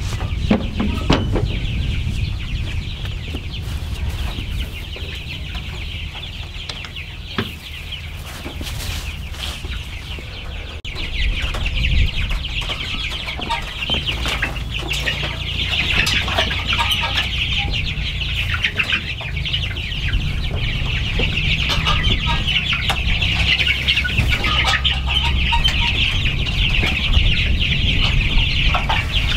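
A brooder full of young broiler chicks peeping continuously in a dense, high-pitched chorus that grows louder about halfway through. Scattered knocks and rustles come from the brooder being opened and worked in, over a low rumble.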